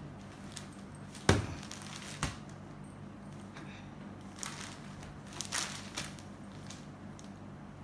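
Cloth rustling as a folded printed saree is set down on a glossy tabletop and opened out, with a sharp knock about a second in and a lighter one a second later.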